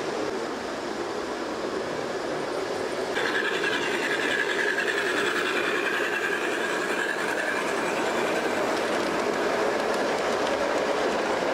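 G-scale model train running along its track and passing close, a steady rolling rumble of wheels on rail. It grows louder about three seconds in, and a high whine rides over it until it fades a few seconds later.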